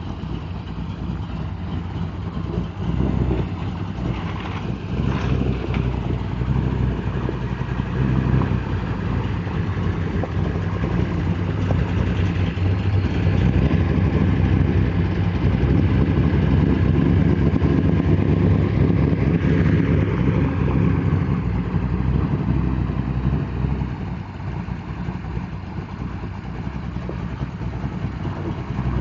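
A 509-cubic-inch big-block V8 in a 1969 Camaro, fed by dual Holley Dominator carburetors, running at idle. It grows louder for about ten seconds in the middle, then settles back.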